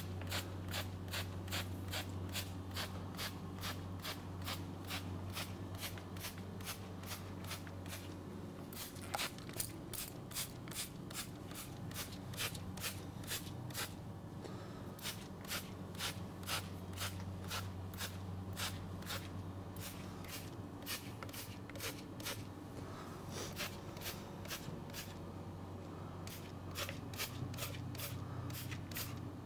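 Rapid flicks of a brush spattering melted cocoa butter onto frozen mousse, about three short ticks a second with a few brief pauses, over a steady low hum.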